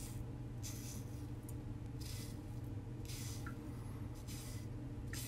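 WCS Lithe open-comb safety razor scraping through five or six days of stubble on a lathered scalp, one short rasping stroke about every second, over a steady low hum.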